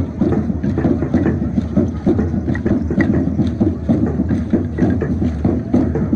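A troupe of danza de arco dancers clacking wooden bows and arrows and stamping their feet, a dense rhythmic clatter of many quick knocks.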